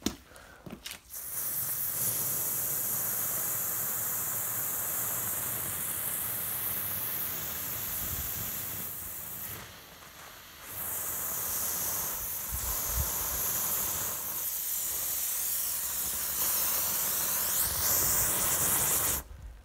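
Garden hose spray nozzle running water into a bucket of wash-and-wax foam, adding water to thin out the suds. The spray is steady, drops off briefly about ten seconds in, and cuts off suddenly just before the end.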